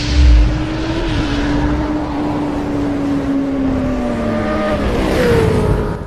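Motorcycle engine sound effect: a low boom at the start, then a steady engine drone over a rushing hiss that slowly falls in pitch and slides lower near the end.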